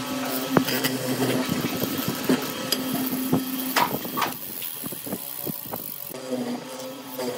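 MK361A hollow-chisel mortising machine running with a steady motor hum while its chisel cuts into a wooden board, with short knocks of wood and metal. About four seconds in the hum weakens and the knocks continue as the board is handled in the vise.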